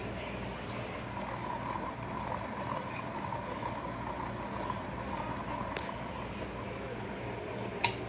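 A 52-inch ceiling fan's motor running with a steady hum. A single sharp click comes just before the end.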